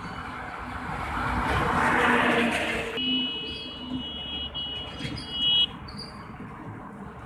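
A heavy Indian goods truck passes close by on the highway, its tyre and engine noise swelling and fading over about three seconds. Then a steady high-pitched tone of several notes sounds for about two and a half seconds and cuts off, with faint bird chirps around it.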